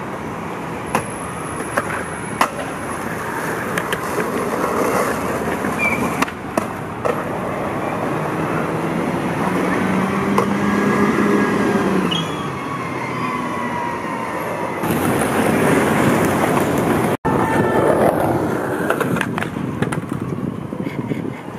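Skateboard wheels rolling over street pavement, with a few sharp clacks of the board near the start, alongside city bus traffic. A bus engine note sounds and falls in pitch about twelve seconds in.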